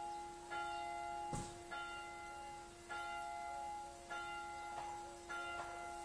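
A church bell rung repeatedly and steadily, about one stroke every 1.2 seconds, five strokes in all, its hum ringing on between strokes. A single sharp knock comes about a second and a half in.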